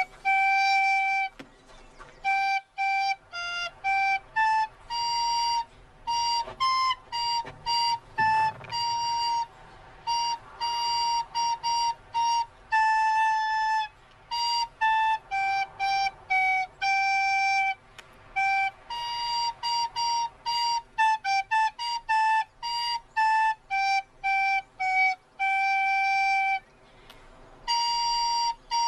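A solo wooden recorder playing a melody of single notes, mostly short ones with brief breaks between them and a few longer held notes.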